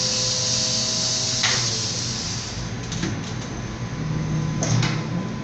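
Ice cream vending machine's suction pick-up arm: a steady hiss with a whining tone from its vacuum pump, which cuts off with a click about a second and a half in. A few quieter mechanical clunks and a knock near the end follow as the machine moves the bar to its delivery door.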